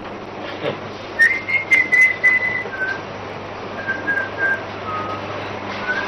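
Whistling of a simple tune: a run of short held notes on one high pitch, then a few lower notes stepping down. A few sharp clicks and knocks come in the first couple of seconds, over a steady low hum.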